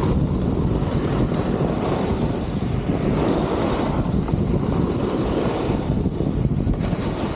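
Wind rushing over the microphone of a camera moving downhill, mixed with a snowboard sliding and scraping over packed snow. A steady noise that eases a little near the end.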